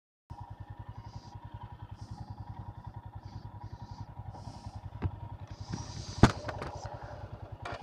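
Motorcycle engine running steadily at low speed, with an even, fast pulsing exhaust beat. There is a small knock about five seconds in and a sharp, loud clack about a second later.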